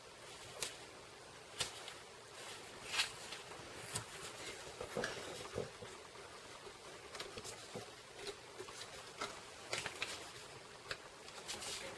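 Cardstock and tape being handled on a crafting table: scattered light taps, clicks and rustles of paper.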